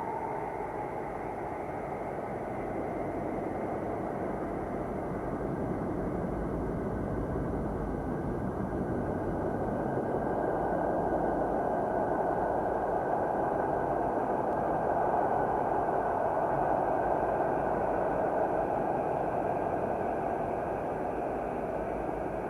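Steady rumbling, hissing space-ambient drone presented as the sound of the planet Saturn, with faint bands of pitch that drift slowly. It swells slightly louder after about ten seconds.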